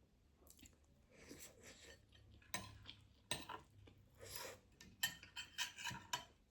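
Eating utensils clinking and tapping against dishes: a string of sharp clinks that come closer together in the last couple of seconds.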